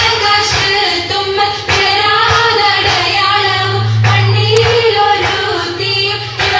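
An Oppana song, a Mappila song sung in a melodic line by children's and women's voices, with hand claps. A low note is held for a second or so about halfway through.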